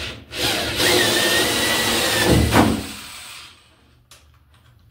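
A wood-shaping stroke on plywood, then a corded power tool runs for about three seconds with a steady whine while cutting wood, and stops. A few light clicks follow.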